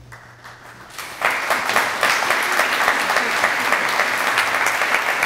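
Audience applauding: light clapping that swells about a second in, then dense, steady applause.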